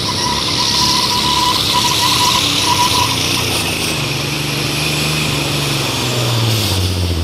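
Super stock pulling tractor's turbocharged diesel engine running at full power as it pulls the sled, with a high whistle over the first three seconds. In the last few seconds the engine note drops lower.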